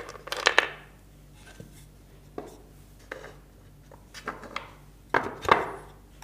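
Wooden parts of a lap desk being handled and fitted into its wooden frame: scattered light knocks and taps of wood on wood, a few about half a second in and a louder pair near the end.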